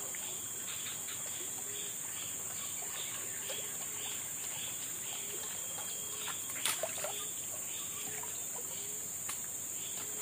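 Outdoor wetland ambience: a steady high insect drone, with short chirping calls repeating several times a second and a low, gliding call repeating about once a second. One sharp knock stands out about two-thirds of the way through.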